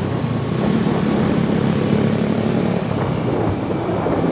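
Vehicle engine running with a steady low drone, holding an even pitch and level throughout.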